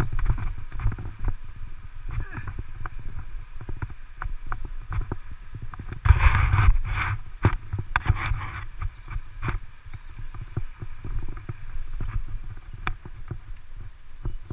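Bicycle rolling over a dirt and gravel road: a low, uneven rumble with frequent sharp clicks and rattles from the tyres on stones and the bike shaking, louder for a moment about six seconds in.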